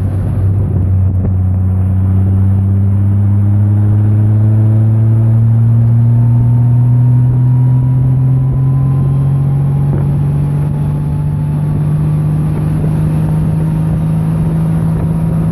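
Touring motorcycle engine running under way, its pitch rising slowly and steadily as the bike gathers speed.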